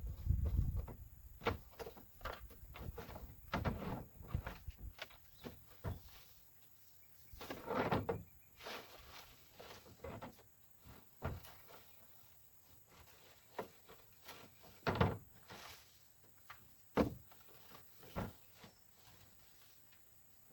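Irregular knocks, thumps and rustles with quiet gaps between them: cut branches and brush being handled and dropped.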